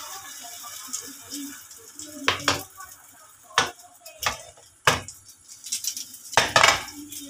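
A silicone spatula and a nonstick frying pan knocking and clattering on a gas stove: a series of sharp knocks, the loudest group near the end. Under them is a faint sizzle of an egg omelette frying in oil.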